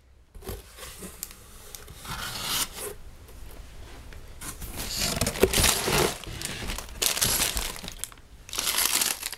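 Clear plastic bags of LEGO pieces crinkling and rustling as they are handled and pulled from the box, in several bursts, loudest about five to six seconds in.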